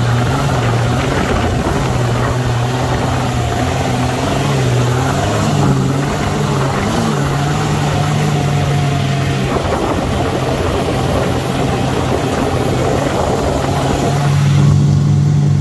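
Sandrail dune buggy's engine running as it drives over the sand, its pitch rising and falling with the throttle, under a steady rush of wind through the open cage. Near the end the engine note turns louder and steadier as the wind hiss drops away.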